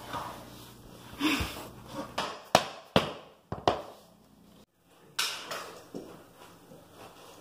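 A handful of sharp knocks and clatters, irregularly spaced, from work on a flooring installation in a small room.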